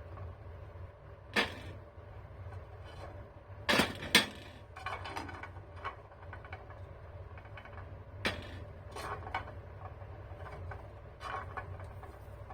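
A handful of sharp knocks and clicks of hard objects, spaced irregularly with a close pair about four seconds in, over a steady low hum.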